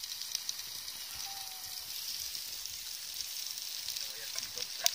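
Meat frying in a pan, a steady sizzle with scattered small pops of fat and one sharp pop near the end.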